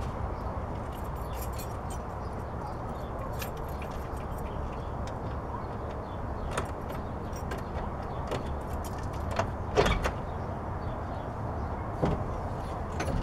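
Car door of a 1959 Edsel Ranger being unlatched and opened: a loud double metallic clunk about ten seconds in, with scattered light clicks and taps before it and another knock near the end, over a steady low background rumble.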